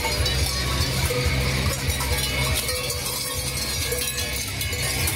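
Large cowbells on Krampus costumes clanging continuously as the runners move, over a steady low rumble.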